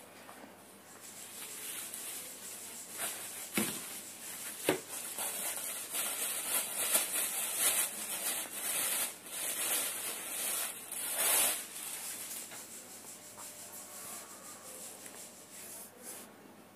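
Rustling and rubbing of things being handled, with two sharp knocks about four and five seconds in; the rustling grows louder around the middle and eases off toward the end.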